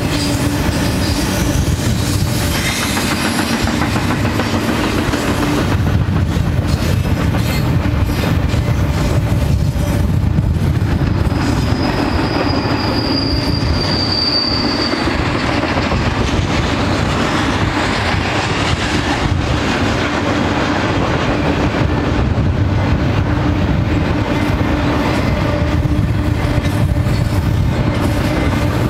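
Double-stack container train rolling past: a steady rumble and clatter of freight car wheels on the rail joints. About twelve seconds in, a thin high squeal rises for around three seconds.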